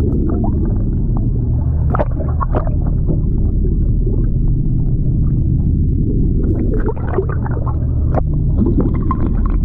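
Sportfishing boat's engine running steadily at trolling speed, a continuous low drone, with scattered small knocks and clatter on deck.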